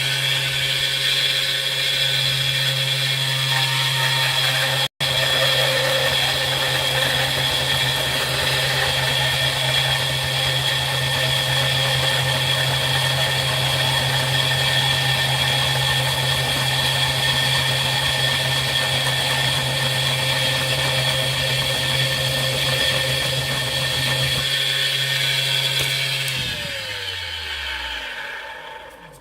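A small electric power tool motor runs at a steady speed, spinning the brass rod while it is shaped. About 26 seconds in it is switched off and winds down, its whine falling in pitch until it stops.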